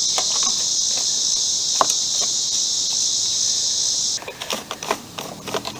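Steady, high-pitched insect chorus that cuts off abruptly about four seconds in, followed by a few light clicks and knocks.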